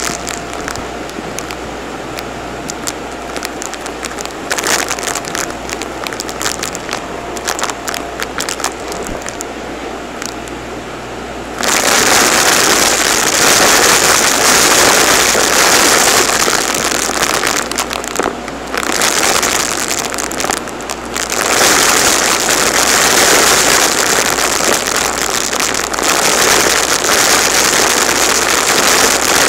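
Shark DuoClean upright vacuum running on a hard floor, with small pieces ticking and clicking as they are sucked up. About twelve seconds in it suddenly turns much louder and harsher as the nozzle draws in a pile of confetti, the pieces rattling up into the clear dust canister, with two brief dips a little later.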